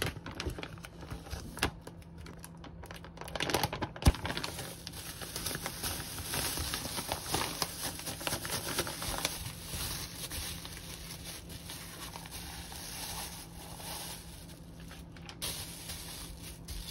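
Plastic bags crinkling and rustling as minced garlic is squeezed from its pouch into a thin plastic bag and pressed flat by hand. A single sharp knock about four seconds in.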